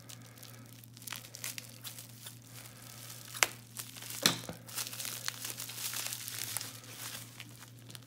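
Bubble wrap crinkling and crackling as it is handled and pulled open by hand around a heavy padlock, in irregular rustles with two sharper cracks about halfway through.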